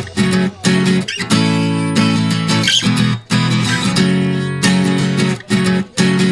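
Background music: strummed acoustic guitar chords with short breaks between them.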